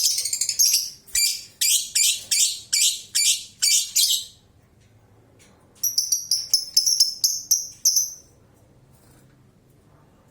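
Lovebird singing its ngekek chatter, a very high, shrill song: a continuous stretch at first, then a run of about eight sharp calls, between two and three a second. After a short pause, a faster run of about four calls a second stops about eight seconds in.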